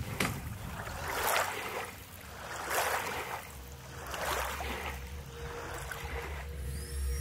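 Small waves lapping and washing on a lake shore, a swelling wash about every second and a half. Music comes in near the end.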